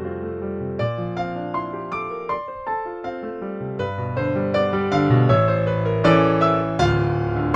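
Piano-led music, a flowing run of struck notes that thins out briefly about two and a half seconds in, then fills out and grows louder.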